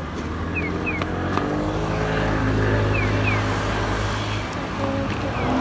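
A motor vehicle's engine running close by, a steady low hum that builds about a second in and stays strongest through the middle.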